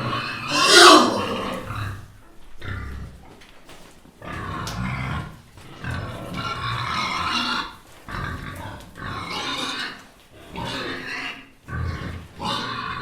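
Piglets grunting over and over while feeding, in short calls about a second apart, with one loud squeal falling in pitch about a second in.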